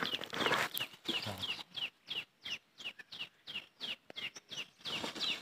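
A bird calling over and over in short, high, downward-sliding chirps, about three a second.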